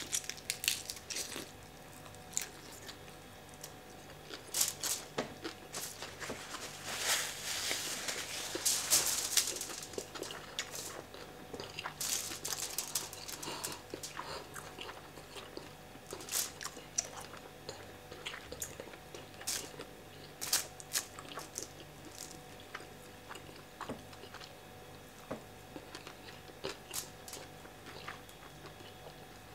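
A person biting and chewing fried fish, with crunches and clicks throughout, busiest about a quarter of the way in.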